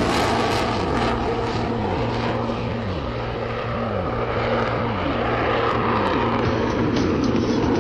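Jet noise from an RF-4E Phantom II's twin General Electric J79 turbojets in flight with afterburners lit: a loud, steady rush.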